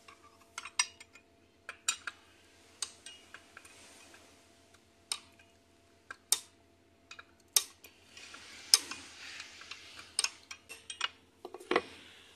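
Metal hand tools clicking and clinking against bolts and parts in the open gear case of a Kipor 186 diesel engine as it is taken apart with a socket wrench: irregular sharp clicks, with a short scraping stretch about two thirds of the way through.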